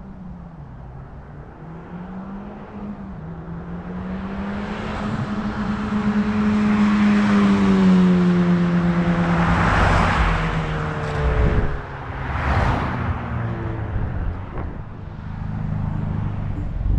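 2020 Honda Civic Type R FK8's 2.0-litre turbocharged four-cylinder running through a muffler and resonator delete, its exhaust note growing steadily louder as the car approaches. It is loudest about ten seconds in, with a brief dip and a second surge just after, then eases off.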